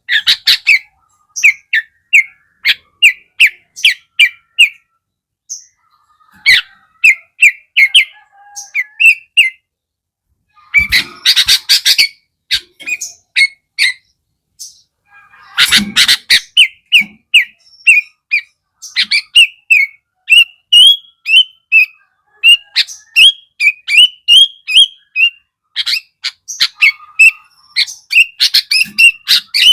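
Sooty-headed bulbul (kutilang) singing: fast runs of short, clear chirps broken by brief pauses, with harsh, rough bursts of notes at about 11 and 16 seconds in.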